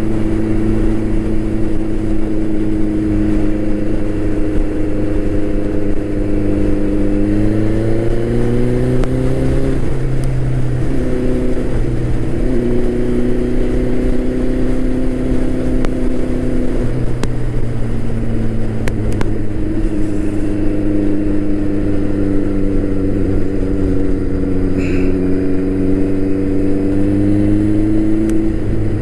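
Turbocharged Suzuki Hayabusa's inline-four engine running while riding, its pitch rising about eight seconds in, dropping back around ten seconds, then holding steady and climbing again near the end.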